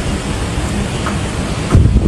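Typhoon-force wind gusting and buffeting the phone's microphone, a steady low rush with a louder gust near the end.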